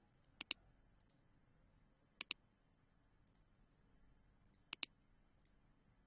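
Computer mouse button clicking: three pairs of sharp clicks, about half a second in, a little past two seconds and near five seconds, with a few fainter ticks between.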